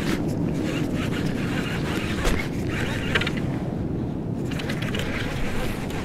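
Fishing reel being cranked with a mechanical clicking and ratcheting, reeling up a hooked fish, a black rockfish.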